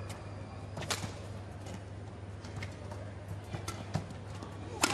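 Badminton racket strings striking a shuttlecock during a rally: several sharp hits, the loudest about a second in and at the very end, over a low steady arena hum.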